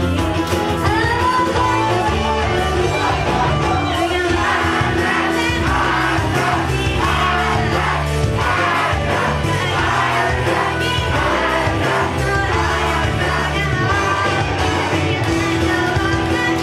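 Pop song playing: singing over a band backing with a steady beat and bass, the vocal line strongest from about four seconds in.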